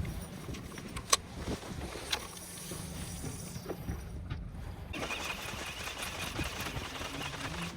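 Fishing boat's engine running low under a steady wash of water and wind noise, with a couple of sharp clicks in the first few seconds.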